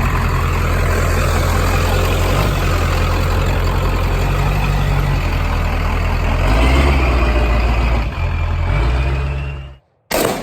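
Vehicle running on the road, heard from inside: a steady, loud low engine and road rumble. It cuts off abruptly near the end, followed by a single sudden loud bang that dies away.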